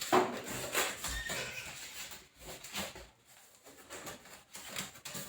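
Light knocks, clicks and rustling from handling a new microwave and its glass turntable plate. The loudest is right at the start, then fainter scattered clicks.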